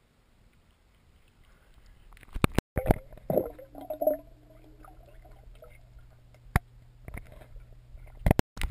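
Pool water sloshing and gurgling against an action camera's waterproof housing as it goes under the surface, with sharp knocks on the housing about two and a half seconds in and again near the end, and a steady low hum while it is underwater.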